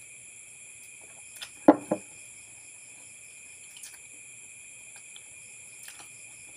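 Steady chirring of crickets and other night insects. A brief loud sound comes about one and a half seconds in, with a smaller one just after.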